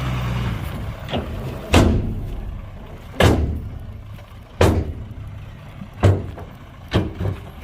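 An engine running steadily for about the first second, then a series of loud bangs, about seven in all, mostly spaced about a second and a half apart, each dying away quickly.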